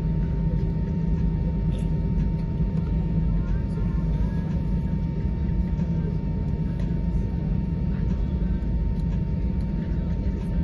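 Steady low cabin rumble inside an Airbus A320 taxiing after landing, with a thin steady tone running through it.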